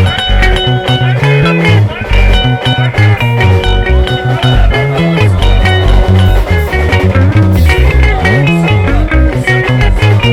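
Sungura band music played live: fast, bright picked lead guitar lines over a busy, sliding bass guitar line and a steady beat.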